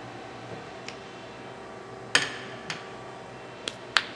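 Steady machine hum with a few sharp clicks and taps on the band saw's controls. The loudest click comes about two seconds in and rings briefly.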